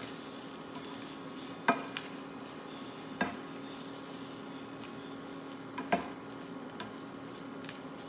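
Plastic slotted spatula stirring grated coconut, coriander and chilies in a frying pan over a low, steady sizzle of frying. The spatula knocks sharply against the pan three times.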